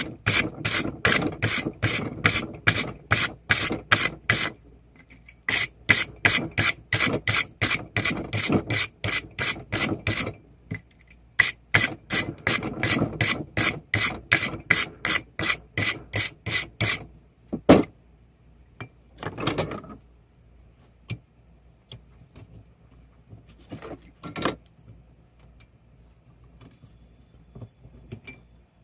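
Wire brush scrubbed quickly back and forth over a hot forged railroad spike to clear the scale, about three strokes a second in three runs with short pauses between. It stops about 17 seconds in, followed by a few scattered knocks and clatters.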